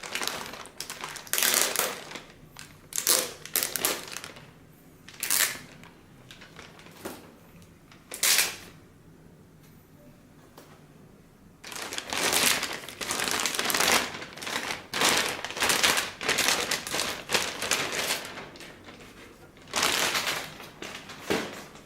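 Packaging being handled around an aftermarket car stereo head unit: scattered clicks and knocks, then about halfway through a long stretch of crinkling and rustling.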